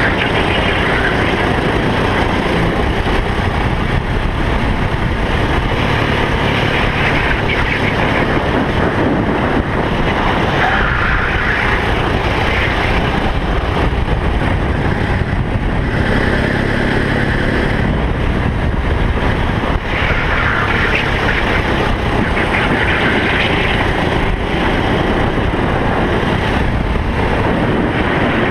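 Racing kart engine at speed as heard from the kart itself, its note swelling and easing every few seconds through the corners, over heavy wind and vibration noise on the onboard microphone.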